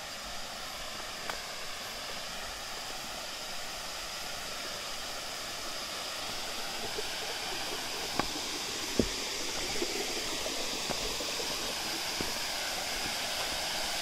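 Steady rush of falling water from a waterfall, growing gradually louder, with a few sharp clicks of footsteps on stones in the second half.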